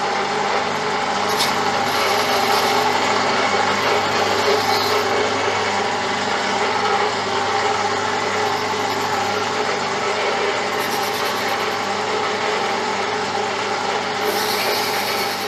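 Metal lathe running at a steady speed while turning down a small brass air-line tail fitting, with a constant whir from its motor and gearing.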